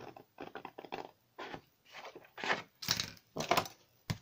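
Scissors cutting through patterned scrapbook paper: a run of short, irregular snips with the paper rustling. Two louder, sharper sounds come about three seconds in.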